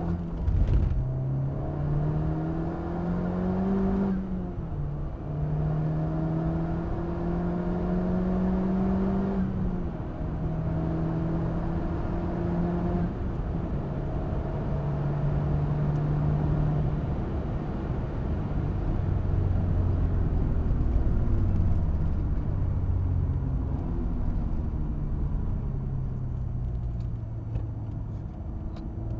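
Honda Civic Type R FK8's turbocharged 2.0-litre four-cylinder engine heard from inside the cabin, pulling hard through the gears: the revs climb and drop back at three upshifts in the first half. Then it runs at lower, uneven revs as the car slows for a corner.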